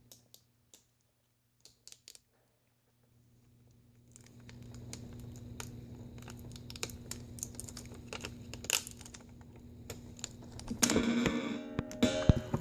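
Small clicks, taps and crinkling from hands detaching the ribbon-cable connector of a laptop LCD panel, with tape being peeled. A low steady hum comes in about four seconds in, and the handling gets louder and busier near the end.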